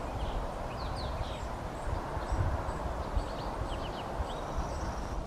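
Small birds chirping: short, high, falling notes repeated in quick groups throughout, over a steady outdoor background noise with irregular low rumbling thumps on the microphone.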